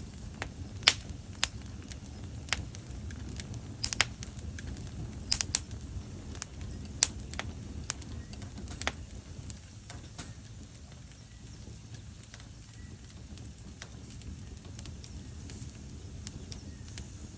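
Wood fire crackling in a fireplace: irregular sharp pops and snaps over a low steady rumble, frequent at first and thinning out after about nine seconds.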